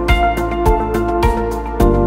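Background music with a steady beat and held instrumental tones.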